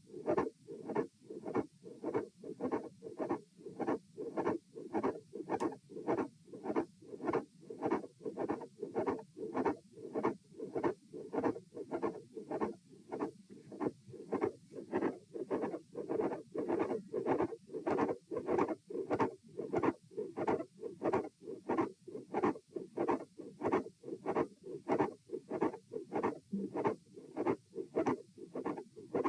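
Human heartbeat heard through a stethoscope on the chest, beating in a steady, regular rhythm of dull thuds. The uploader identifies the heart sounds as a mid-systolic click and a fixed split S2, recorded here while standing during a posture stress test.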